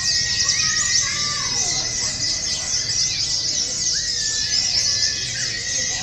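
Many caged songbirds, including a white-eye (pleci), singing at once as a dense, continuous high chirping and twittering, with a few lower whistled notes and faint background voices.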